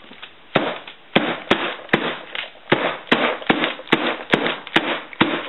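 Loaf mold of freshly poured cold-process soap batter being knocked down against the tabletop, about a dozen sharp knocks roughly two a second, to tamp the batter down and settle it in the mold.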